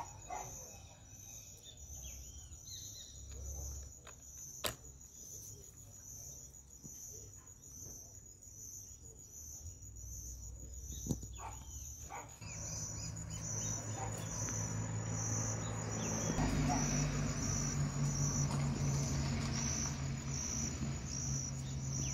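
Insects chirping in a high, steady pulse that repeats about once a second, with a few short bird chirps and a couple of sharp clicks. From about halfway a hiss and a low steady hum come in underneath and grow louder.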